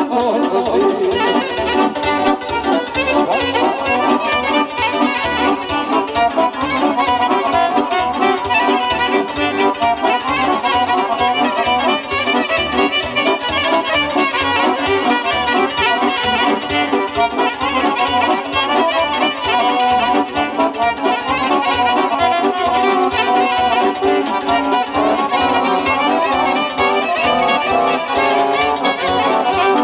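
Amplified violin playing a lead melody over a Korg electronic keyboard accompaniment, with a steady beat underneath: an instrumental break in a live band performance.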